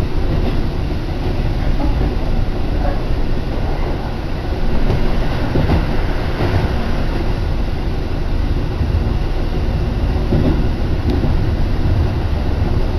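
Keihan Katano Line electric train running between stations, heard from inside the passenger car: a steady rumble of wheels on rails with a few short clatters.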